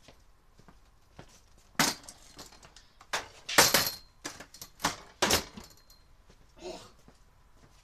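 A run of sharp clinks and clatters of hard objects being handled and set down, about eight in all, the loudest about halfway through with a brief metallic ring.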